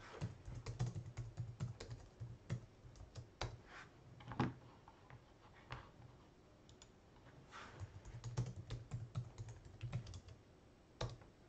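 Typing on a computer keyboard: runs of quick keystrokes, a pause of a few seconds midway, then another run and a single keystroke near the end.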